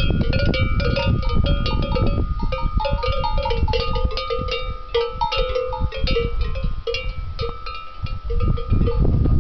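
Bells on the collars of Tudanca cattle clanking irregularly as the cows move and graze, several bells of different pitches ringing at once, over a steady low rumble.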